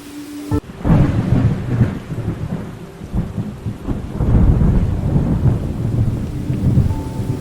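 Thunder rolling in deep, swelling rumbles over steady rain, cutting in abruptly about half a second in as a soft sustained musical tone stops.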